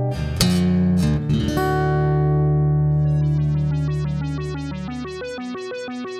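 Background music: a few strummed guitar-like chords and a held chord, then from about three seconds a fast run of short repeated electronic notes.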